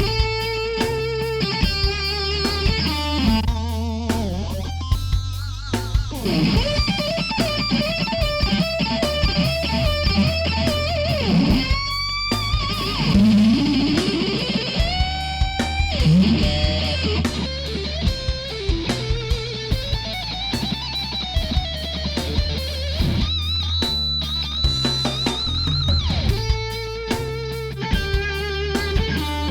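Electric guitar solo played through a plugin emulation of an Orange guitar amplifier (Brainworx bx_rockergain 100), over drums and bass guitar. It has several rising string bends in the middle and a long held note near the end.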